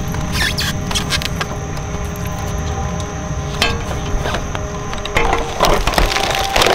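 Twin-shaft shredder running, its steel cutters cracking and snapping plastic toy pieces in sharp, irregular cracks. Louder crunching near the end as a bigger item is drawn in.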